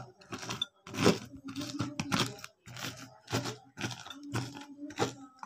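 Knife cutting through crisp vegetables: a steady run of crunchy cutting strokes, about two a second.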